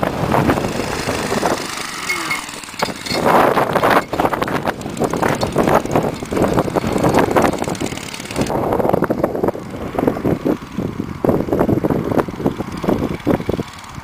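The small Tecumseh 4 hp snowblower engine of a homemade minibike running under throttle as the bike climbs a gravel driveway and passes close by.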